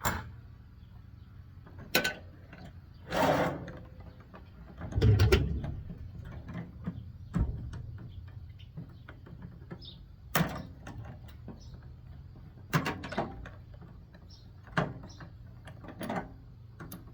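Hands dismantling a small Samsung appliance: scattered sharp clacks and knocks of parts being pried and pulled loose, a scraping rustle about three seconds in and a heavier clattering thud about five seconds in.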